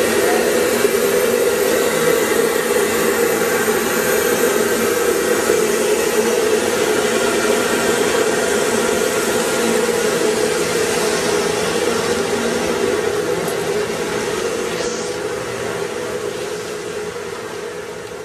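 Ruwac FRV200 air-powered explosion-proof industrial vacuum running on compressed air and sucking up coal dust through a floor tool: a loud, steady rush of air with a droning hum under it. The sound fades out near the end.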